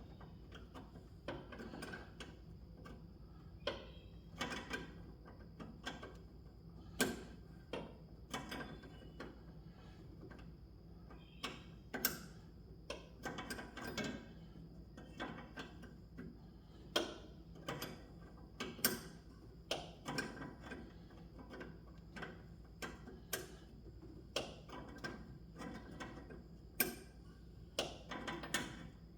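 Hand tools clicking and clinking against metal while a replacement master cylinder is bolted on: irregular sharp clicks, roughly one or two a second, some in short clusters.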